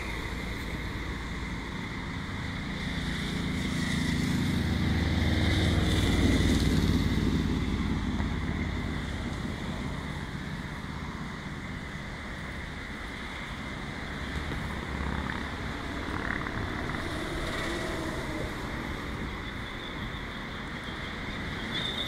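Road traffic on a busy multi-lane road, with one vehicle passing loudest about six seconds in. Wind rumbles on the microphone.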